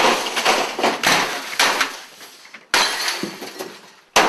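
A desk computer being smashed with repeated crashing blows, with clattering and breaking. Loud bursts of blows start at once, come again a little under three seconds in, and again just before the end.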